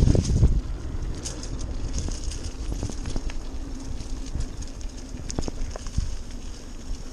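Mountain bike rolling over a dirt singletrack: tyre noise and rattling of the bike, loud and rough for about the first half second, then quieter and steadier with scattered sharp clicks.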